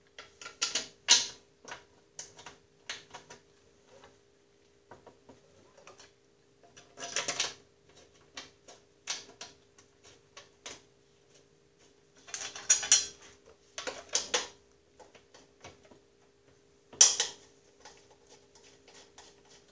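Irregular small metallic clicks and clinks of bolts and metal parts being handled and hand-started into a Snapper rear-engine rider mower's drive housing, with a few louder rattles along the way. A faint steady hum sits underneath.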